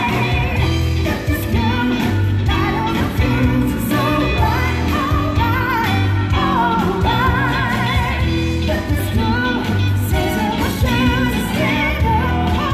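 A pop song with a singer's voice with vibrato over a steady bass beat and backing instruments.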